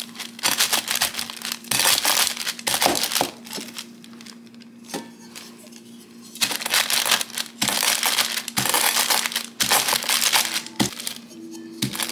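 Plastic wrap crinkling as whole fennel seeds wrapped in it are pressed and crushed under a bowl, a makeshift way to crack the seeds. It comes in repeated bursts with a quieter pause around the middle.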